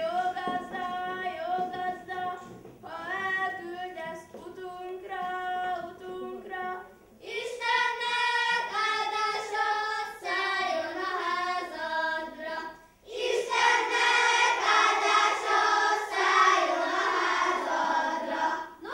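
Children's choir singing a nativity-play song. It starts thin and soft, grows fuller and louder about seven seconds in, breaks off briefly near thirteen seconds, then comes back at its loudest and fullest to the end.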